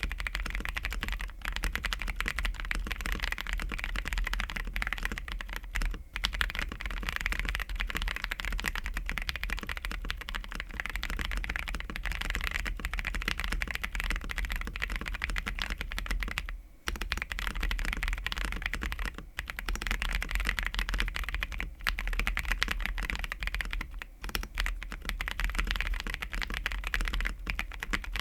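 Ikki68 Aurora custom mechanical keyboard with lubed Kiwi tactile switches on a polycarbonate plate, typed on quickly and continuously. The dense key clacks break off for a few short pauses.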